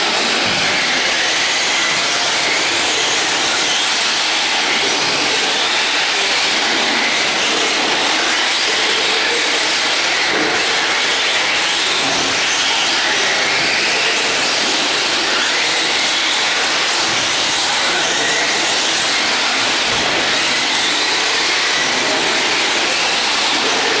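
Several radio-controlled off-road trucks racing together: a steady hiss and whine of their motors, with faint whines rising and falling in pitch.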